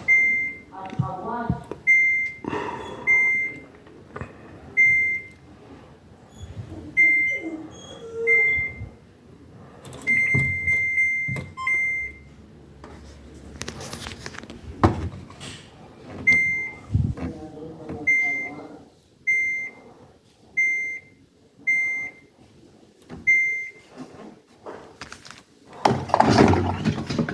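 Samsung DV5000T heat pump tumble dryer's control panel beeping as its buttons and dial are worked: about twenty short high beeps at one pitch, spaced irregularly, with handling clicks and knocks between them. A louder stretch of knocking and rustling comes near the end.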